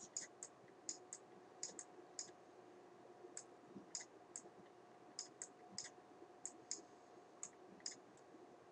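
Faint, short, irregular clicks of a stylus tapping and dragging on a pen tablet during handwriting, about two a second, over a faint steady hum.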